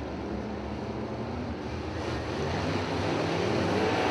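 Modified race cars' engines running at a distance as the field circulates under a caution flag, a steady low rumble that grows louder over the last couple of seconds.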